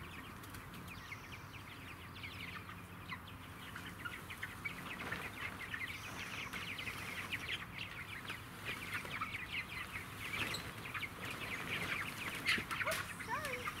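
A flock of five-week-old chicks in a chicken tractor peeping and cheeping busily in a dense stream of short, high calls, growing louder as the tractor is moved closer.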